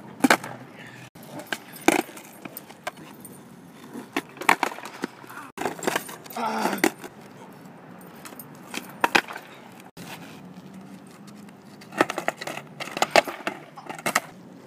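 Skateboard flatground tricks on concrete: sharp cracks of the tail popping and the wooden deck and wheels clattering down. The impacts come singly every few seconds, then bunch together near the end.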